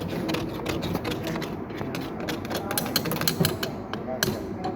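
Irregular, rapid clicking and tapping of hand tools against metal pump parts, busiest in the middle, with faint voices under it.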